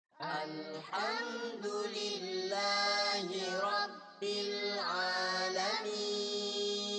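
A boy reciting the Qur'an in the melodic tilawah style through a microphone: one voice with ornamented slides in pitch, a brief break about four seconds in, then a long held note near the end.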